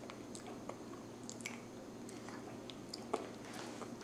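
A toddler chewing bread: faint, scattered small wet mouth clicks and smacks, with one sharper click about three seconds in.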